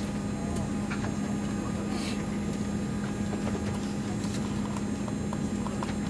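Cabin noise of a Boeing 787 taxiing: a steady low hum over an even rush of air, with a few scattered light clicks and rattles.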